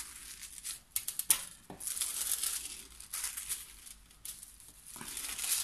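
A sheet of gold craft foil crinkling and rustling as it is handled and rubbed down by hand onto a glued surface, with a few sharper crackles.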